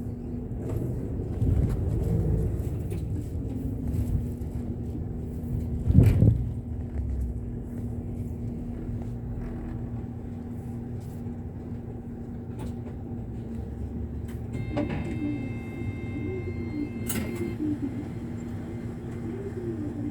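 Bus running, heard from inside: a steady engine hum and low road rumble, with a single loud knock about six seconds in. Near the end a high ringing tone sounds for a few seconds.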